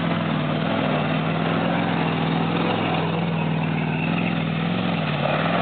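Pickup truck engine running at a steady low pitch as the truck drives slowly through grass, dipping briefly and then rising near the end as it heads into the mud hole.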